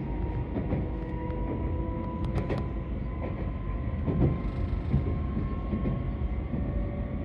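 Keisei Morning Liner limited-express train running, heard from inside the passenger car: a steady low rumble with a motor whine that slowly rises in pitch as the train picks up speed, and a couple of sharp clicks about two and a half seconds in.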